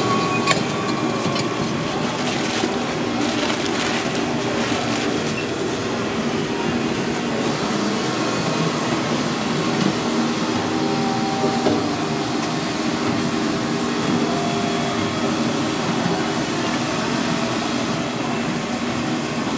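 Steady loud rumble and hum of a commercial kitchen, with a few clinks and clatters in the first few seconds.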